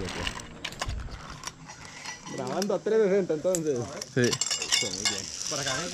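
Metal clicks and clinks of a zip-line pulley trolley and its clips being handled at the harness, with a person's voice in the second half.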